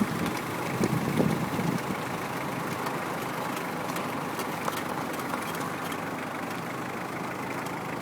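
Peugeot car idling steadily, with a few short low surges in about the first two seconds, in a recording made to capture the noise the car makes when the brake pedal is pressed and released.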